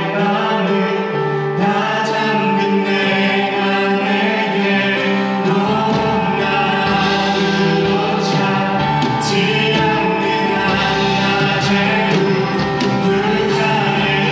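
Live contemporary worship music: a praise team singing together over a band with keyboards. A deep bass part comes in about six seconds in.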